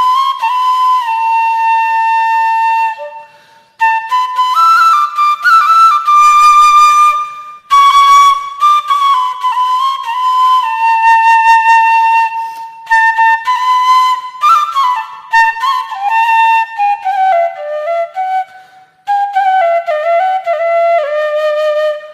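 Background music: a solo flute playing a slow melody of held and sliding notes, pausing briefly three times.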